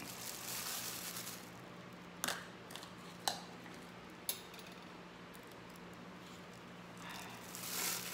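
Faint crinkle of a disposable plastic glove handling raw chicken wings in a bowl, with a few light clicks in the middle, then a swell of rustling and squishing near the end as the gloved hand rubs the seasonings into the meat.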